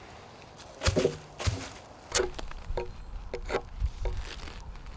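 Wood working on a birch pole: a few sharp wooden knocks in the first two seconds, then a run of short, lighter knife strokes cutting into the bark and wood.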